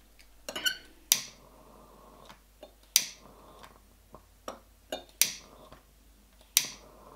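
Long-reach piezo lighter clicked over and over, a sharp loud click every second or two with fainter ticks in between: repeated tries to ignite sambuca in a snifter glass.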